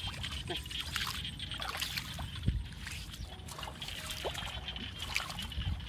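Shallow water trickling and splashing as hands and feet move through a flooded grassy field, with scattered small clicks.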